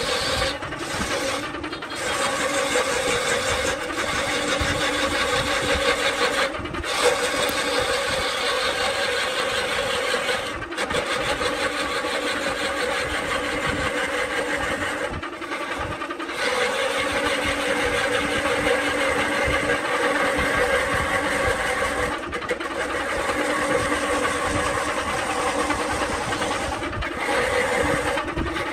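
Wood lathe running steadily while a hand-held turning tool cuts the spinning coconut palm wood, a steady motor hum under a rough scraping of the cut, broken by several very short drop-outs.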